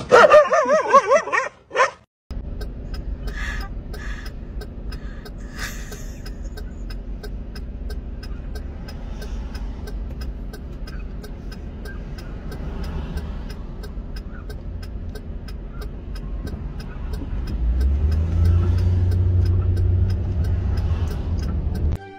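Road traffic heard from inside a car: a steady low engine rumble that swells louder about 18 seconds in, as vehicles pull away. It is preceded by about two seconds of a dog's wavering, pitched cry.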